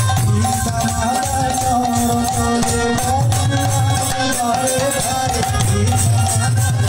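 Live Bengali Buddhist kirtan music played through a PA: a wavering melody over steady hand-drum beats and continuous jingling of small hand cymbals.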